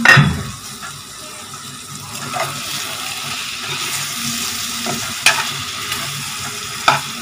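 Thick prawn gravy sizzling in a nonstick kadai while a spoon stirs and scrapes through it. A metal clatter at the very start is the steel lid coming off the pan. The spoon gives a few sharp knocks, the clearest two about five and seven seconds in.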